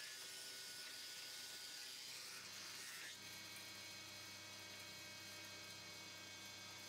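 Axminster AW2260S planer thicknesser running faintly: a high hiss fades about three seconds in, leaving the steady low hum of the machine.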